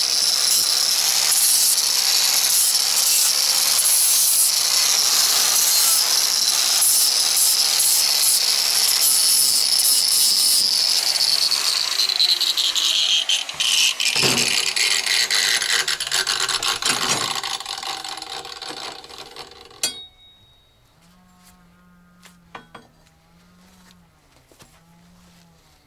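Electric saw running at full speed with a high whine, then switched off and spinning down, its pitch falling steadily for several seconds until it stops. A few faint knocks follow over a quiet low hum.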